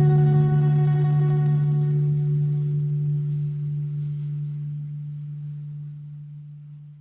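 Background music: a plucked-string chord ringing out, its low note held and slowly fading away.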